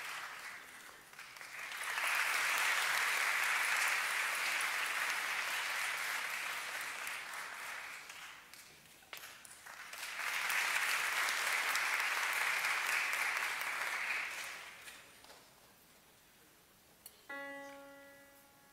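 Audience applause in two waves, the second swelling as the conductor bows, dying away before a single piano note is struck near the end and left to ring.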